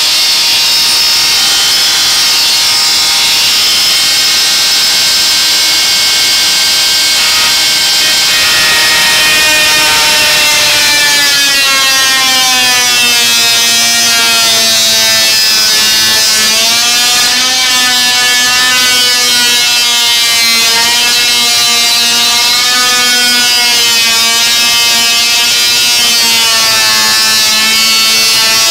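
Oscillating multi-tool running continuously through a cut in wood, its whine dropping in pitch about a third of the way in and then wavering up and down as the load on the blade changes.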